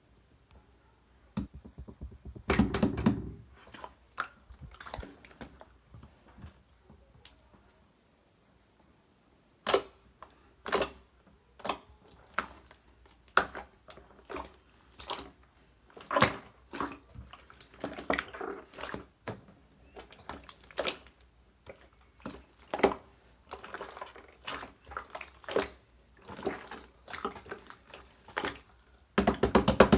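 Clear slime being kneaded and stretched by hand, giving an irregular run of sticky clicks and small pops, with a short pause partway through.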